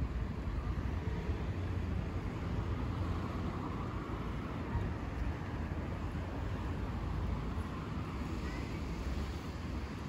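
Steady low rumble of city street traffic, cars driving along the road beside the pavement.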